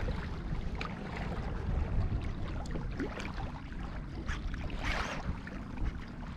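Ocean water sloshing and lapping against a kayak hull, with wind rumbling on the microphone and scattered light clicks and splashes; a louder splash about five seconds in.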